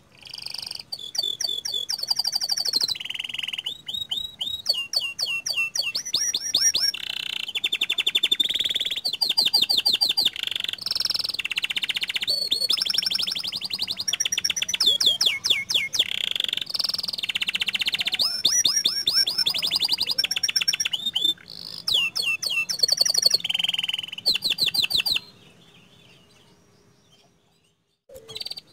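Domestic canary singing a long, continuous song of rapid rolling trills and fast runs of high repeated notes, stopping about 25 seconds in.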